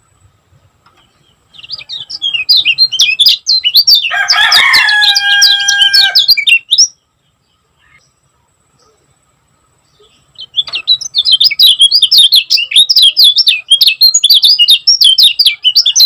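Kecial kuning songbird singing two fast, dense bouts of rapid high chirps separated by a few seconds' pause. A held, steady-pitched call overlaps the first bout about four seconds in.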